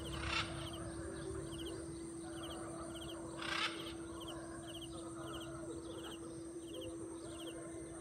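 Outdoor wildlife chirping: small groups of short high chirps repeating about every half second, with two short, louder noisy calls, one just after the start and one about three and a half seconds in. A faint steady hum runs underneath.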